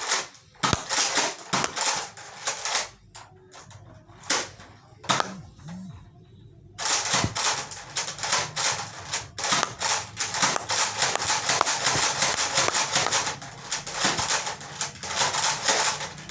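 Nerf Elite foam-dart blaster being fired: a few scattered clicks at first, then from about seven seconds in a dense, fast run of clicking shots over a steady low hum as it is emptied.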